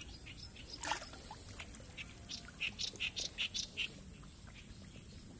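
A bird calling a quick run of about eight short, high notes, some two and a half seconds in, after a brief burst of noise about a second in.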